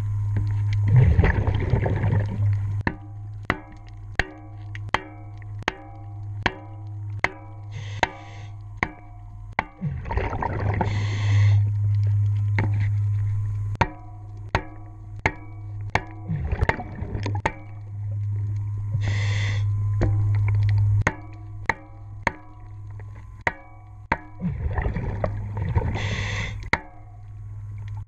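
Underwater hammer blows through a wooden block against a boat propeller, seating it on its shaft during installation, about two strikes a second, each leaving the metal ringing. Between them come several bursts of exhaled regulator bubbles lasting a second or more, along with a steady low hum.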